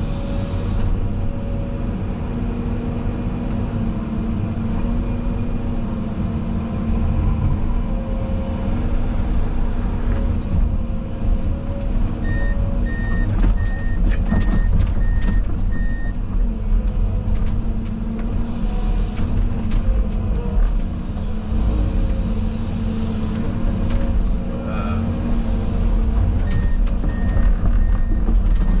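Excavator's diesel engine and hydraulics running steadily, heard from inside the cab. A backup alarm beeps about twice a second for a few seconds around the middle and starts again near the end.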